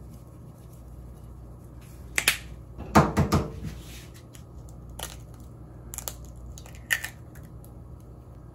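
Tabletop handling sounds: a sharp click, then a cluster of knocks as a small ceramic bowl is set down on a wooden table. These are followed by three separate sharp taps as a raw egg is cracked into the bowl.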